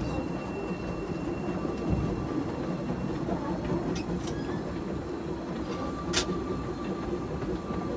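Garden-railway steam locomotive running along the track, heard from right behind its cab: a steady rumble of engine and wheels. Sharp clicks come about four seconds in, and a louder one about six seconds in.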